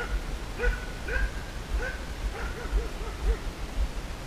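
Hunting dogs barking: about ten short, faint barks, coming faster in a run about halfway through.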